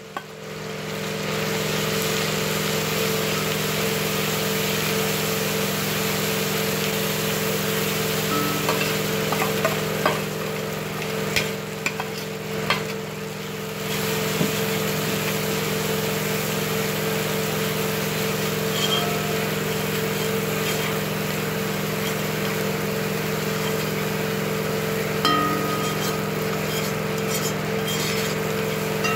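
Butter and spiced halwa masala mixture sizzling and frying in a hot karahi, with a metal spoon now and then clinking and scraping against the pan. A steady low hum runs underneath.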